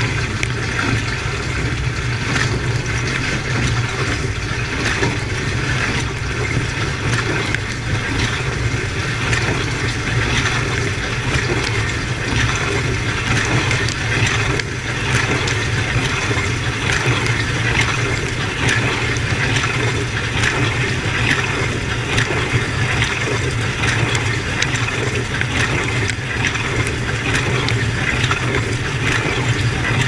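Dishwasher running its wash cycle, heard from inside the tub: a steady low hum from the circulation pump under the constant hiss and splashing of water jets from the spray arm striking the racks, dishes and steel walls.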